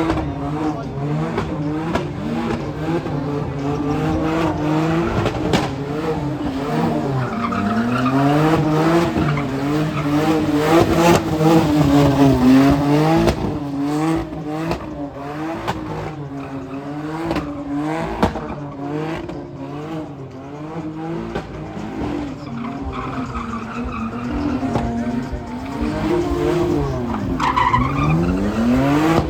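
Modified older BMW's engine revving hard, its pitch climbing and dropping over and over, with tyres squealing as the car drifts.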